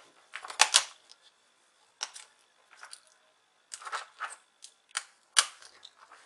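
Irregular light clicks and taps of plastic laptop parts being handled: the disassembled top case and its speaker assembly, with short bunched rattles among single clicks.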